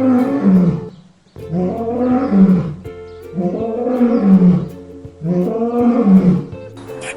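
An animal calling repeatedly: about four long, loud calls, each rising and falling in pitch, with a short gap about a second in. Background music plays steadily underneath.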